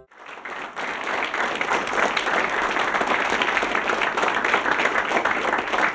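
Studio audience applauding, building up over the first second and then holding steady.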